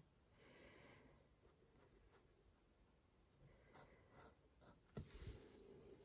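Faint scratching of a fine-liner pen nib on textured watercolour paper, making short shading strokes, with a few light ticks as the nib touches down. A soft knock about five seconds in.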